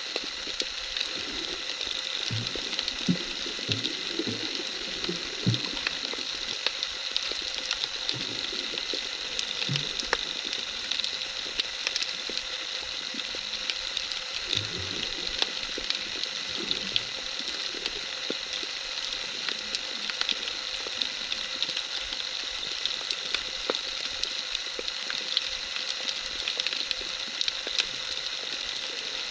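Underwater sound picked up by a camera submerged in the sea: a steady crackling hiss made of countless tiny clicks, with a few short low knocks a few seconds in and again about halfway.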